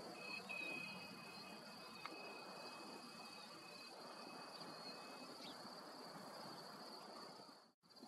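Faint outdoor insect chorus: an even, high-pitched buzzing trill that holds steady, with a thinner steady tone alongside it from about half a second in to about five seconds. The sound drops out briefly just before the end.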